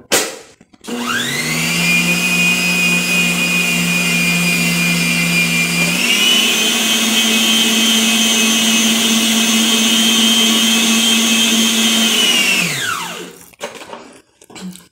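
Philco Planetária PHP500 planetary stand mixer beating cake batter: a sharp click, then the motor spins up with a rising whine and runs steadily. About six seconds in it steps up to a higher speed, and near the end it is switched off and winds down with a falling whine.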